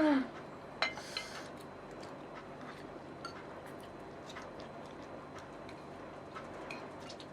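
Faint, scattered light clicks of cutlery against noodle bowls while eating, with a louder click about a second in.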